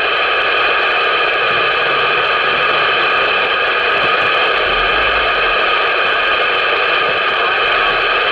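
CB radio receiver on 27 MHz upper sideband giving out a steady, loud hiss of static through its speaker, with no station readable over it: heavy band noise is drowning out the signals.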